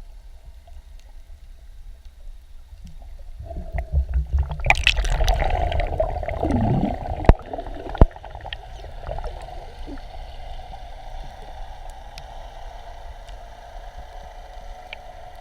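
Water gurgling and sloshing over a steady low rumble, with two sharp knocks about seven and eight seconds in.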